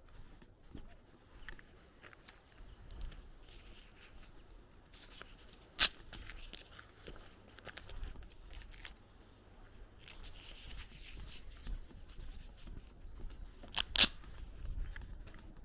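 Footsteps crunching on a dirt-and-gravel lane, faint and irregular, with two sharp, louder clicks, one about six seconds in and one near the end.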